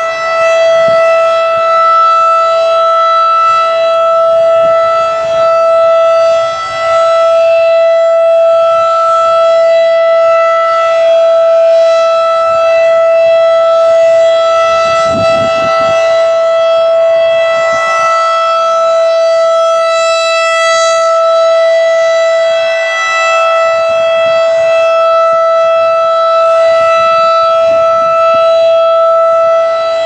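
Federal Signal 2001-DC outdoor warning siren sounding a loud, steady tone during its routine monthly test. The pitch holds without rising or falling while the rotating horn sweeps around, and the loudness rises and falls slightly as it turns.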